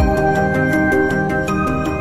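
Background music with held notes over a steady beat, with a deep bass hit at the start.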